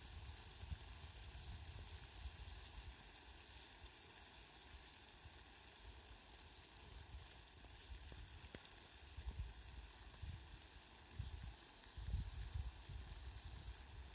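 Faint, steady hiss of water showering down on flowers and grass, with low rumbles now and then, heavier in a stretch about twelve seconds in.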